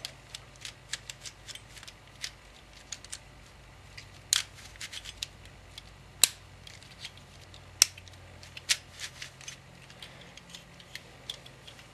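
Plastic pieces of a Gigaminx puzzle being pressed and snapped into place by hand: irregular sharp clicks throughout, with a few louder snaps.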